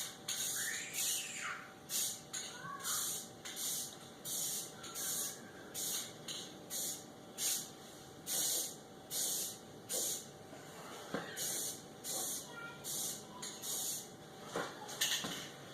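Red spray paint hissing from a spray can in short bursts in quick succession, as the parts of a drill press are painted.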